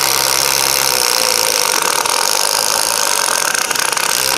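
Metabo cordless impact driver hammering a 20 cm screw into stacked wooden timber under load, a steady dense rattle that cuts off abruptly near the end as the screw is driven home.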